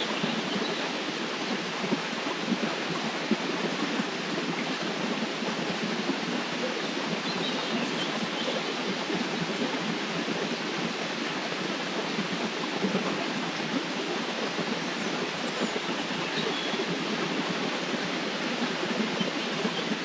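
River water flowing, a steady rushing with small irregular splashes and gurgles.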